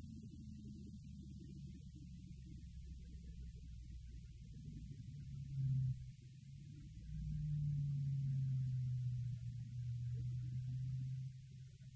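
Low, steady engine drone heard inside the cab of a Ram TRX, whose engine is a supercharged 6.2-litre V8. It swells briefly a little before halfway through, then runs louder and steady for about four seconds before dropping back.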